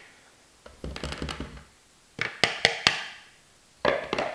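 Wooden spoon knocking and scraping against a bowl as flour is tapped out into a mixing bowl: light taps about a second in, then a quick run of about four sharp knocks, and a rougher scrape of the spoon near the end.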